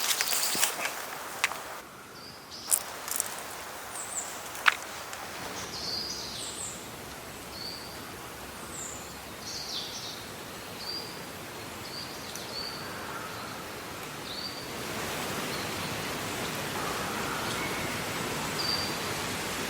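Outdoor ambience of birds chirping in short, high, repeated calls, with a few sharp clicks and knocks in the first few seconds. A steady hiss comes up about three quarters of the way through.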